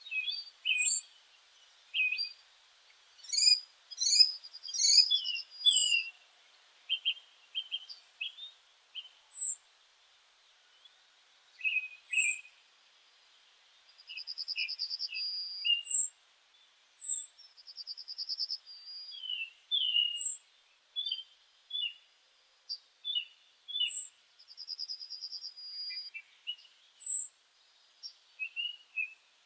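Several meadow birds chirping and singing: a short, high sliding whistle repeats every few seconds over lower chirps, with a buzzy trill now and then.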